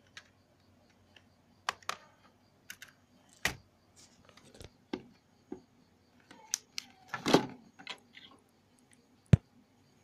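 Irregular plastic clicks and knocks of a phone's snap-on back cover being pried off and the opened handset being handled, with a sharp knock near the end.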